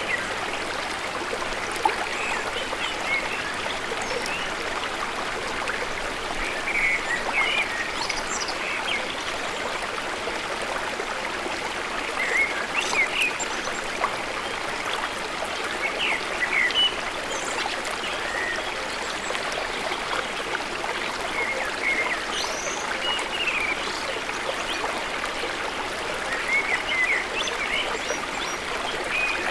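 Small waterfall's water rushing and splashing steadily, with short bird chirps in little bursts every few seconds.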